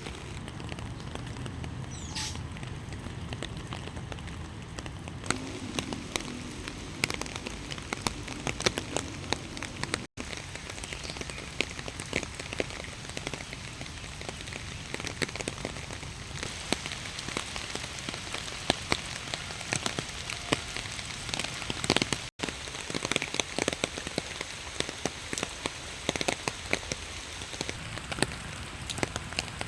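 Light rain falling, with many separate drops striking a surface as sharp ticks over a steady hiss.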